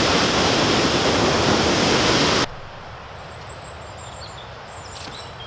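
Waterfall rushing loud and steady, dropping suddenly about halfway through to a fainter, distant river rush with small birds chirping high above it.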